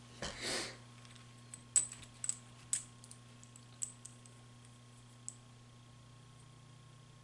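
Loaded brass .223 cartridges handled and set down in a row on a towel: a soft rustle, then scattered light clicks of brass against brass, about six over the first five seconds. A faint steady electrical hum sits underneath.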